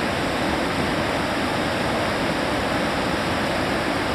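Fast mountain river rushing over boulders and rapids: a steady, loud roar of white water.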